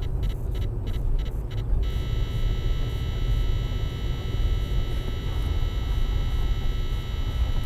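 Car driving on a slushy road, heard from inside the cabin through a dashcam microphone: a steady low road and engine rumble. For the first two seconds there is a rapid ticking, about three a second, and after that a steady high whine.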